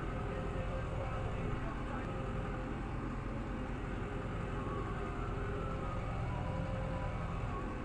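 Tractor engine running steadily under load while pulling a rotary hay tedder at a slow working pace. There is a faint steady whine over the engine note.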